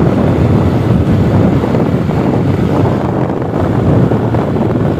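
Steady wind rumble on the microphone of a moving motorcycle, mixed with the bike's running and road noise.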